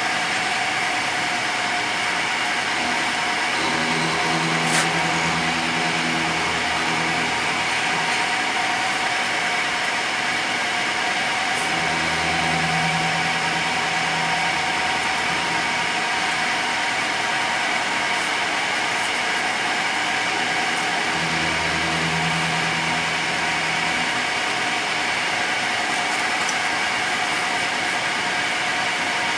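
Milling machine running, its end mill cutting into the metal ignition-switch housing clamped in the vice: a steady machine whine, with a lower hum that swells three times.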